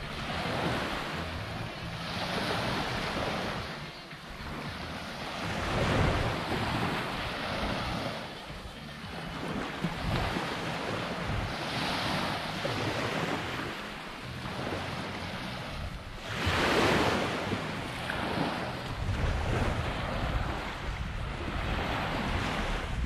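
Small waves breaking and washing up a sandy beach, swelling and falling back every few seconds, the biggest about two-thirds of the way through. Wind rumbles on the microphone over the last few seconds.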